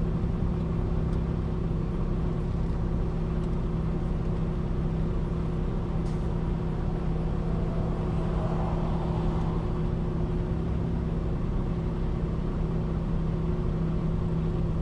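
Steady drone of a Peterbilt 579 semi truck's diesel engine and road noise, heard from inside the cab while driving, with an even low hum that holds the same pitch throughout.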